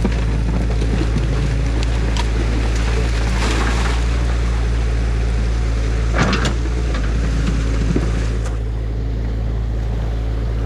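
A New Holland excavator's engine running steadily under the rush of water pouring through a breach in a beaver dam. A few knocks and crunches come through, the loudest about six seconds in.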